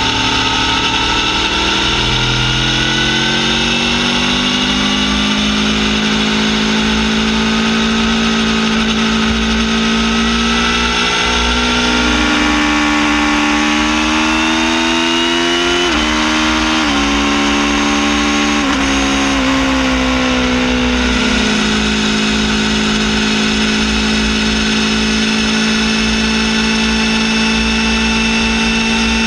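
Aprilia Tuono V4 R's V4 engine running through a full titanium Akrapovic Evo exhaust with a carbon fibre silencer, heard from beside the silencer while riding. The engine note climbs over the first few seconds and holds steady, rises again around the middle, then drops in several quick steps before settling to a steady cruise, over a constant low wind rumble.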